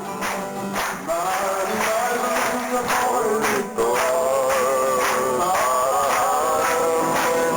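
Live folk song performance: a sung melody, led by male voice, enters about a second in and carries on over a steady beat struck about twice a second.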